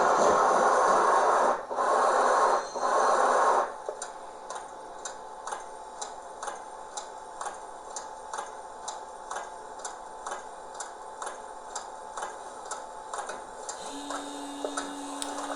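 Model railway train with a BR 80 tank locomotive: a loud hiss, broken twice, stops a few seconds in, then regular light ticking at about two clicks a second as the train rolls slowly, with a steady low hum starting near the end.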